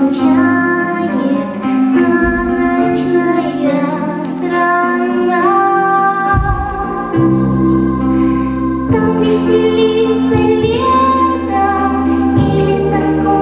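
A young girl singing a song into a handheld microphone over backing music.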